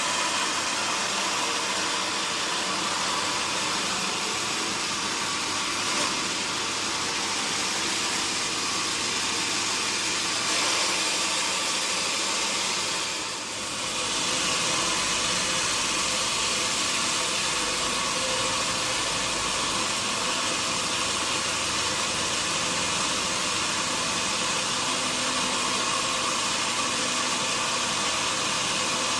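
Sawmill machinery running with a steady, even noise, dipping briefly about thirteen seconds in.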